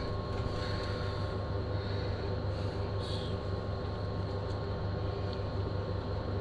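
Steady low hum of a running motor or machine, with a faint steady whine above it. A brief faint scrape comes about three seconds in.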